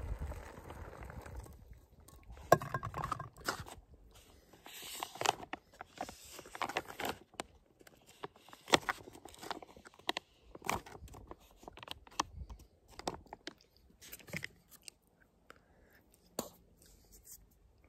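Boiling water pouring into a freeze-dried meal pouch for about the first second and a half, then the pouch crinkling and rustling in irregular bursts as its top is pressed shut and it is handled.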